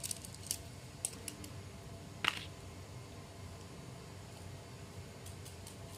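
Handling noise as a plastic pea-pod fidget keychain with a small metal clasp is set down on a sheet of paper: a few light clicks and taps in the first second or so, then one sharper click about two seconds in, followed by quiet room tone.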